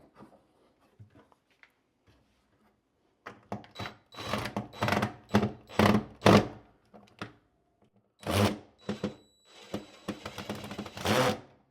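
A toilet paper holder being worked loose from its wall bracket: a quick run of sharp knocks and clatter, then a louder knock and a scraping rattle near the end.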